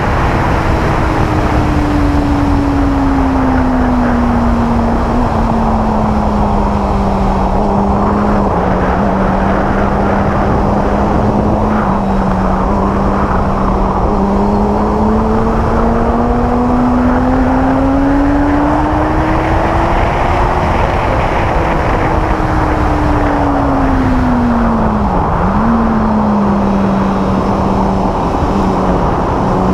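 A 600cc inline-four sport bike engine running hard at speed over heavy wind noise. Its note climbs and falls slowly with throttle, with a few small steps in pitch. Near the end the pitch drops sharply, then jumps straight back up.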